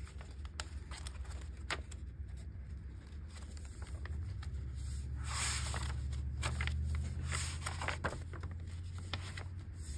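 Paper pages of a notebook being turned by hand: light rustles and clicks, with a louder page swish about five seconds in and another about two seconds later, over a low steady rumble.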